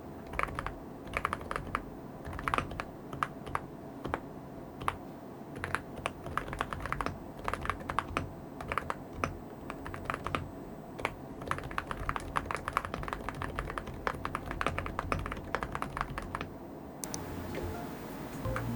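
Typing on an Archon AK55 keyboard, a fast, irregular run of key clicks that stops about seventeen seconds in. Soft background music plays underneath.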